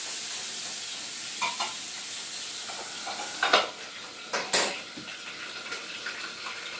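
Meat frying and sizzling in a pan on the stove, a steady hiss, with several sharp metal clanks of pan and lid around the middle as it is checked; the sizzle is quieter after the clanks.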